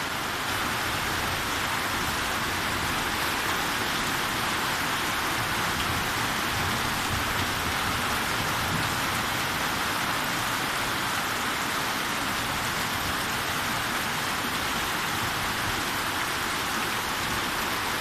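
Heavy rain pouring down steadily on the ground and standing water, an even hiss that does not let up.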